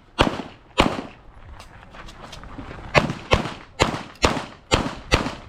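Handgun shots fired during an IPSC stage: two shots, a pause of about two seconds, then six shots in quick succession at about two a second, each with a short echo.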